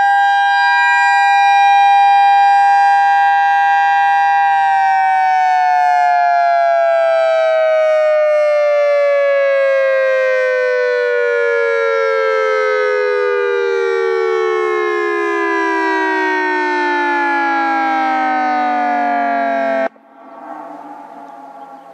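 Federal Signal EOWS 612 electronic outdoor warning siren sounding its steady alert tone, a two-note chord, then about four seconds in beginning a long wind-down in which the pitch slides steadily down for some fifteen seconds before cutting off abruptly near the end.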